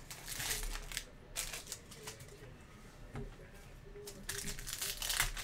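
Foil trading-card packs and cards being handled: scattered rustles, crinkles and light clicks, busier at the start and again near the end.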